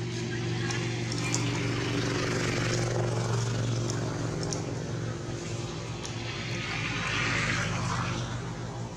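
A steady engine drone at an even pitch, with a rushing noise that swells twice: a couple of seconds in and again near the end.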